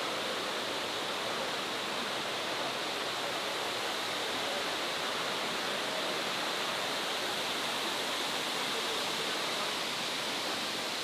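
Steady rush of water falling at Shifen Waterfall: a constant, even roar with no change in level.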